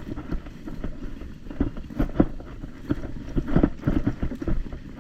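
Footsteps and rustling of gear as a player walks through a grassy field, with wind buffeting a body-worn action camera's microphone.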